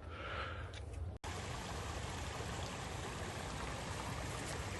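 Steady rushing of water from a farm soaked by about 80 mm of overnight rain, starting abruptly about a second in and running on evenly.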